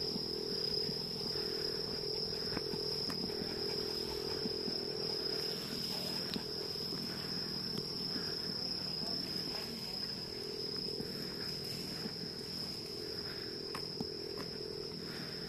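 Insects trilling in one steady high-pitched note, over a low background hum.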